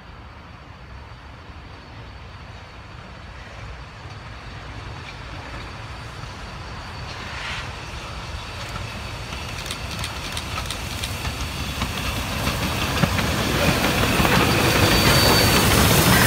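Steam locomotive 2705 hauling passenger carriages, approaching and growing steadily louder until it is passing close by near the end, with rail clicks coming in as it draws near.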